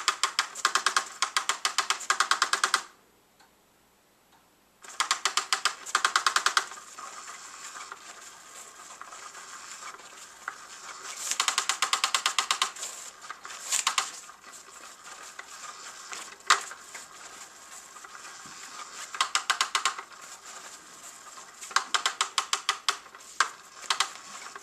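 Motorized Undercover Mouse cat toy running: its small geared motor ticks rapidly as the wand sweeps about under the fabric skirt, in bursts that stop and start at random. It falls silent for about two seconds near the start.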